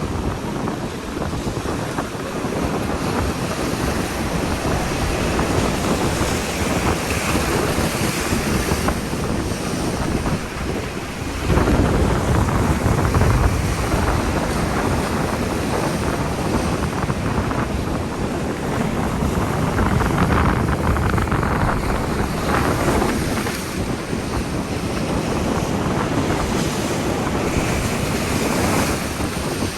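Ocean waves washing and breaking in a continuous rush, with wind buffeting the microphone. A louder, deeper surge of surf comes in about a third of the way through.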